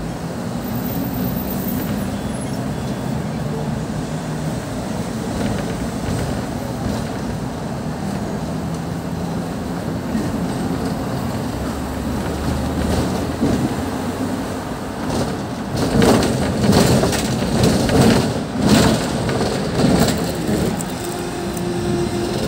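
Hong Kong double-decker electric tram running along street track: a steady rumble of steel wheels on the rails with a low motor hum. It grows louder and more uneven, with bursts of rattle, for a few seconds before the end.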